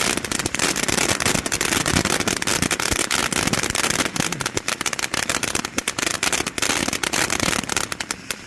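Space Agent ground fountain from Iron Man Fireworks, a double fountain, spraying with a steady hiss and dense, rapid crackling throughout.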